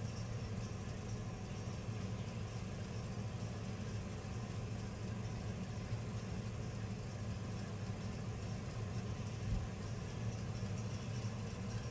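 A steady low mechanical hum with a faint hiss over it, unchanging throughout, with no distinct knocks or clatter.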